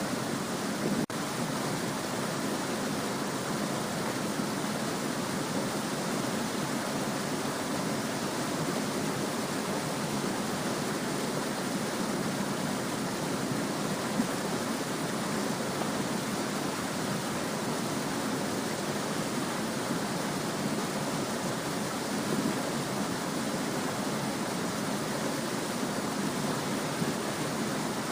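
Small stream babbling and flowing steadily over stones, an even rushing murmur of water. There is a brief dip about a second in.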